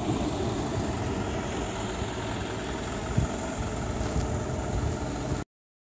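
Steady rumble of road traffic at a street, with a vehicle engine running.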